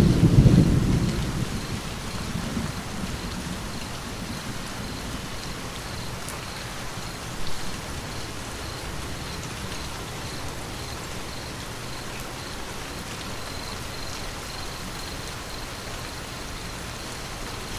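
Steady rain falling, with a low rumble of thunder that fades away over the first couple of seconds. A brief low thud comes about seven and a half seconds in.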